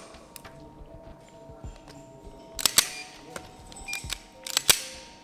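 Sharp metallic clicks from a Beretta 92-series pistol's hammer and trigger mechanism as it is dry-fired against a trigger pull gauge and the hammer is re-cocked. The clicks come singly and in quick pairs over soft background music.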